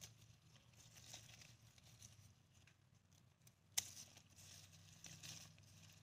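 Faint rustling of sweet pepper plant leaves, with a single sharp snip a little under four seconds in as hand shears cut the stem of a ripe red sweet pepper.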